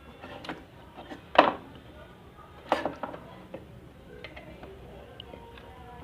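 A few sharp clicks and knocks of hard objects being handled, the two loudest about a second and a half apart.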